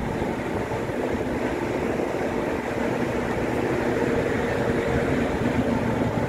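Steady drone of a running vehicle heard from inside, an even rumble with a faint steady hum.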